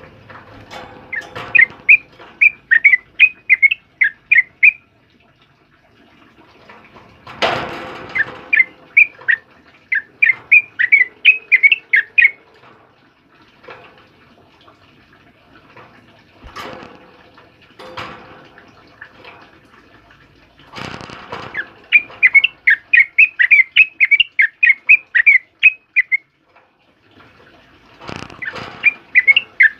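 Yellow-vented bulbul (trucukan) singing in fast runs of short chirped notes, about three a second. There are four runs of about four seconds each, with a few brief rustling thumps between them.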